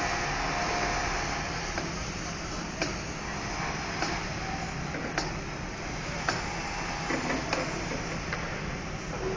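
Steady rumble of a vehicle driving slowly on a dirt road, with sharp knocks about once a second as it jolts over the rough surface.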